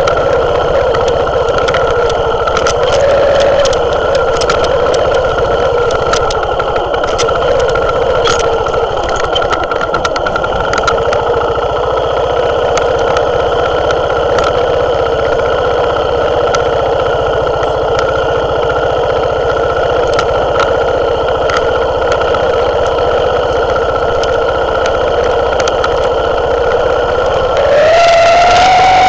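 Herald Classic motorcycle engine running at steady low revs down a steep rocky descent, with scattered clicks and rattles over the stones. Near the end the engine note rises as the revs pick up.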